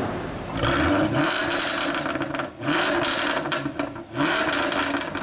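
Jaguar F-Type's engine revved in three short blips, each rise followed by a rapid run of crackles and pops from the exhaust.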